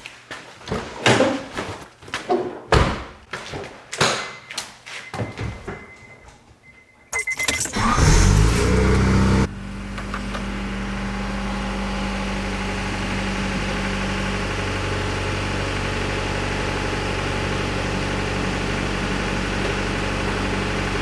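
A series of knocks and thunks, then a car engine starting about seven seconds in. It revs briefly and then settles to a steady idle.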